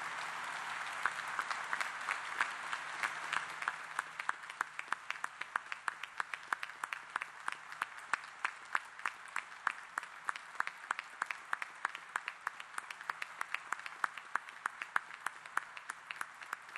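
Audience applauding: a dense wash of applause for about the first four seconds, then thinning into scattered, separate claps that go on.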